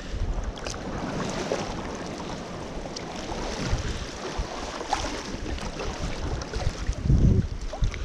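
Sea water sloshing and splashing as a gill net is handled and lifted from the water by hand, with wind buffeting the microphone and a louder gust near the end.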